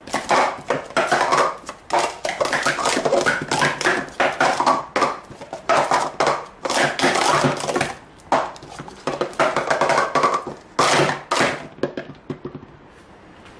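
Plastic sport-stacking cups clattering in quick runs of clicks and knocks as they are stacked up and brought down through a timed cycle sequence. The clatter stops about twelve and a half seconds in, when the cups are back in three stacks of three.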